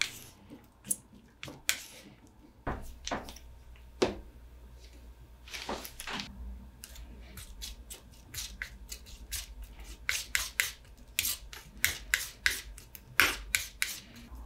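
A paintbrush mixing oil paint on a palette: short, irregular scrubbing and dabbing strokes of the bristles against the palette, coming faster in the last few seconds.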